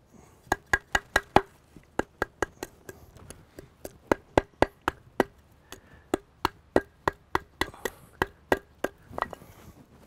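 Knife being batoned through wood with a wooden baton to split kindling: sharp wooden knocks, about 25 in all, a few a second in quick runs.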